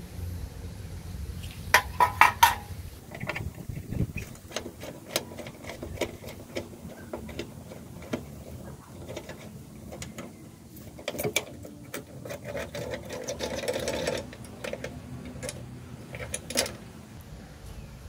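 Metal clicking and rattling of an old Smith-Corona typewriter's carriage mechanism being handled during teardown. A burst of loud clicks comes about two seconds in, a denser rattle about three-quarters of the way through, and a sharp click near the end.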